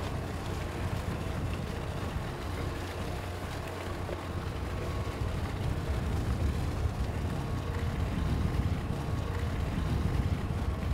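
Steady low engine rumble with an even wash of water and wind noise over it, growing a little louder about halfway through.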